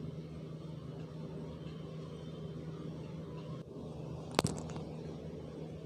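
Pan of water simmering on a gas stove burner, a steady low rumble, with one sharp metallic clink about four and a half seconds in.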